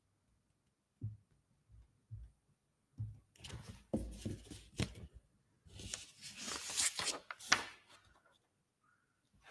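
Faint rustling noise with scattered clicks, in two stretches of about two seconds each, after a few soft low knocks.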